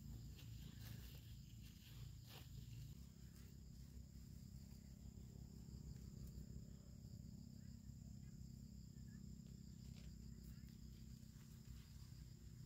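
Near silence: faint field ambience with a steady high insect drone over a low rumble, and a few faint rustles and clicks.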